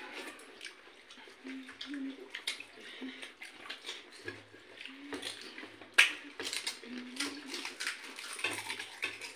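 Pani puri (gupchup) being eaten: crisp hollow puri shells cracked open with fingers and crunched, with wet dipping sounds from the bowl of spiced water. Many small sharp cracks and crackles throughout, with one sharper crack about six seconds in.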